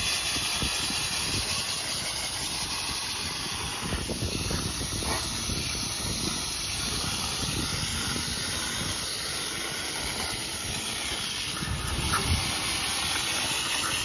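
Garden hose spray nozzle jetting water onto the fins of an HVAC condenser coil: a steady hiss of spray rinsing coil cleaner and dirt out of the coil.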